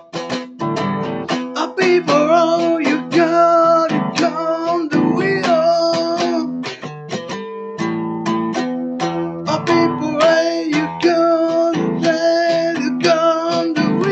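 Acoustic guitar strummed in a steady rhythm, with a man singing along in long, wavering held notes.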